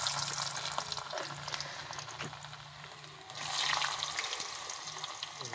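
Hot ghee in a steel karahi sizzling loudly as handfuls of freshly cut chips are dropped in to fry. The sizzle is strong at first, eases, then surges again about three and a half seconds in as another handful goes in.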